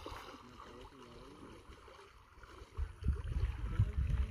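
Floodwater rushing in a steady even hiss, with wind gusting on the microphone in low rumbles from about three seconds in.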